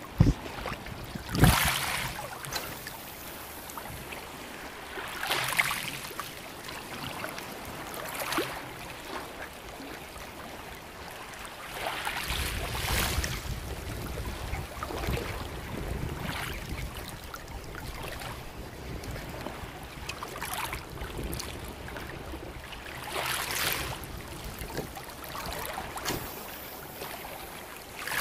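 Shallow sea water lapping and splashing in soft swells every few seconds, with a sharp knock about a second and a half in.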